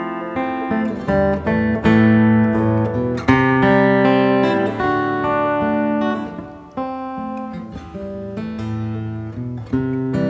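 Yamaha FSX5 steel-string acoustic guitar fingerpicked: a melody over bass notes, each note plucked and left to ring. The strings are extra-light 10s and the guitar is played without effects, its basic sound.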